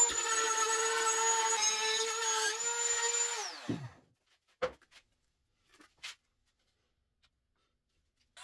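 Compact trim router running at high speed as it cuts out a hole in the box's top panel, a steady high whine. It is switched off about three and a half seconds in and winds down, followed by a few faint clicks and handling sounds.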